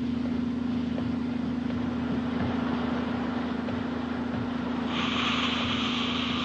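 A steady low machine hum with noise over it. About five seconds in, a loud hiss joins it.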